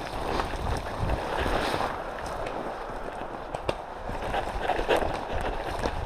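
Footsteps pushing through dry grass and brush: a steady rustling and swishing of stalks against legs, with a few sharp twig snaps.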